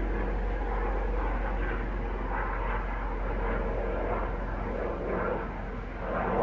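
Aerospatiale AS365 Dauphin twin-turbine helicopter flying overhead: a steady rotor and engine drone that swells slightly a few times.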